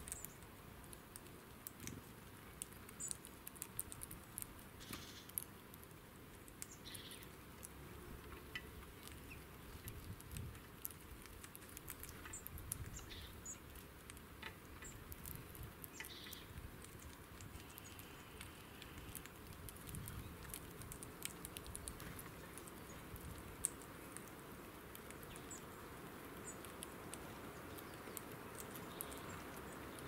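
Faint, irregular small clicks and taps of a hawfinch and a bullfinch pecking at and cracking sunflower seeds on a wooden bench. A few short, faint bird calls are heard now and then.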